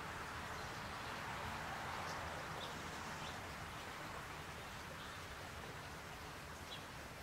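Outdoor backyard ambience: a steady hiss with a low hum beneath it, and a few faint, brief bird chirps now and then.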